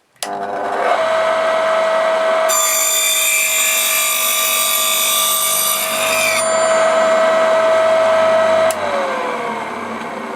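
Homemade bench circular saw, its 550 W capacitor-run motor driving a fine-toothed metal slitting cutter as the blade: switched on with a steady whine, then cutting a rabbet in a wooden bar for about four seconds with a harsh high-pitched sawing sound. Near the end the motor is switched off and its pitch falls as it spins down.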